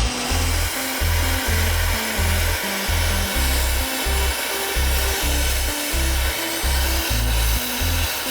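Background music with a steady beat and short repeated bass notes, over a steady hiss that sets in at the start.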